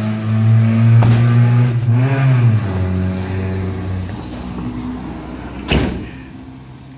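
A vehicle engine runs loudly, briefly rising and falling in pitch, then fades away. Near the end a cargo van's sliding side door slams shut with one sharp bang.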